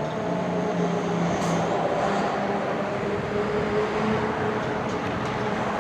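Model 5 outdoor warning siren, its tone sliding slowly lower as it winds down at the end of a test, over a steady hiss of road traffic.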